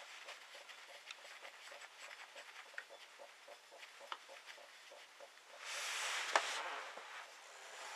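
Faint, rapid ticking, several ticks a second, then about six seconds in a louder hissing scrape that lasts about a second.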